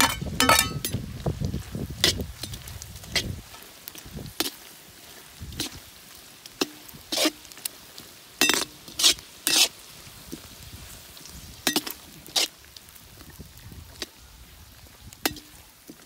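Metal spatula clinking and scraping against a wok in irregular strokes as carrots, onions and egg are stir-fried, over a faint sizzle.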